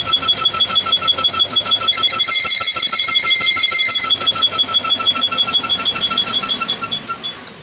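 Rapid electronic beeping, about seven pips a second at a fixed pitch, with a steadier tone layered over it for a couple of seconds in the middle; it cuts off sharply near the end.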